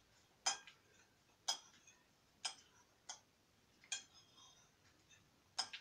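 Metal cutlery clinking against a dish: about six sharp single clinks with a brief high ring, roughly a second apart.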